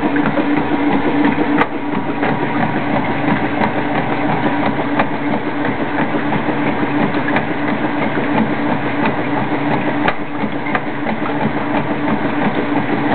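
Kenmore washing machine running steadily, a continuous motor hum with mechanical noise and faint scattered clicks.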